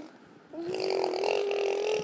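A toddler humming one long, steady note, starting about half a second in.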